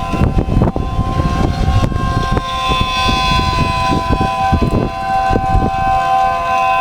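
Homemade 3D-printed miniature ACA P10 tornado siren with a 12/9-port rotor, holding a steady two-note chord. Strong wind buffets the microphone in gusty low rumbles.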